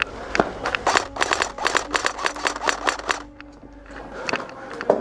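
Airsoft guns firing: a quick, irregular run of sharp clicking shots that stops about three seconds in, then one more sharp crack near the end.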